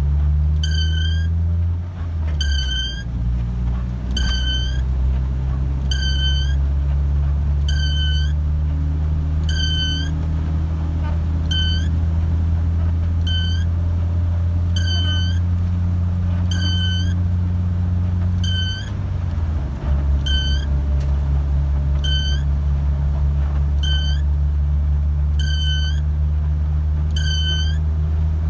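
A sharp, high squeak that repeats regularly about every two seconds over a steady low engine drone from a vehicle. The drone dips briefly a little past the middle.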